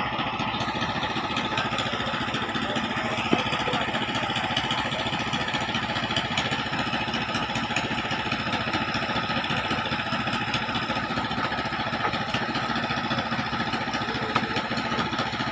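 A boat's engine running steadily at idle, a fast even low-pitched throb, with a couple of sharp knocks about three seconds in and near the end.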